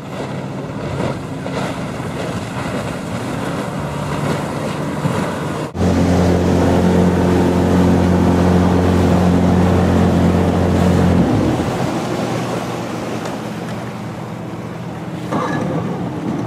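Outboard motor of a bass boat running at speed, with wind and water rushing past. About six seconds in, the sound cuts to a loud, steady engine drone, which eases after about eleven seconds.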